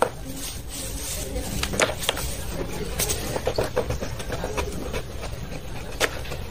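Dry chalky chunks and coloured powder crushed by hand in a plastic basin: irregular small cracks and crunches as the pieces crumble under the fingers.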